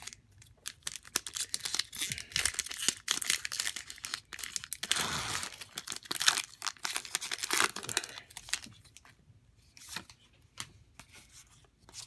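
Foil booster pack wrapper of a Pokémon trading card game being torn open and crinkled in the hands: a dense, crackling rustle of foil plastic for most of the time, heaviest midway, thinning to a few lighter rustles and clicks near the end.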